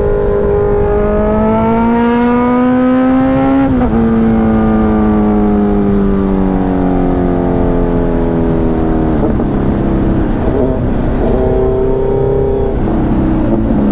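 Sport motorcycle engine on an open exhaust with the dB killer removed, very loud, heard from the rider's seat at speed. Revs climb for a few seconds, then fall sharply at a gear change about four seconds in, then sink slowly as the bike slows, dipping again twice later, over a steady wind rush.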